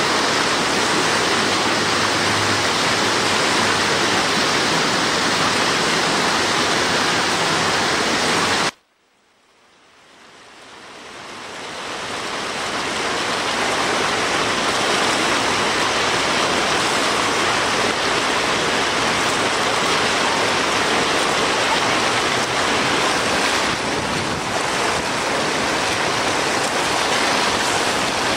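Steady, loud rushing noise. It cuts out abruptly about nine seconds in, then swells back up over the next few seconds.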